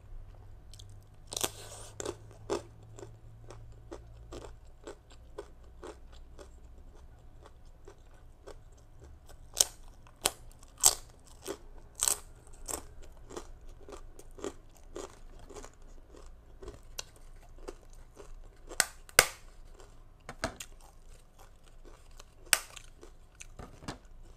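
Person crunching and chewing a mouthful of crispy rice cracker (bánh đa) topped with green mango and shrimp salad: irregular sharp crunches between quieter chewing, the loudest clusters around ten to twelve seconds and nineteen seconds in.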